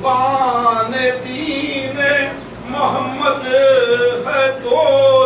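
A man reciting a devotional Urdu poem in a sung, chanting style into a microphone, with no accompaniment, holding long wavering notes between short breaks.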